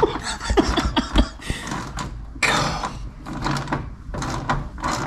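Hand ratchet wrench turning a stubborn, rusty bolt: irregular metallic clicks and clanks, with a couple of duller knocks about half a second and a second in.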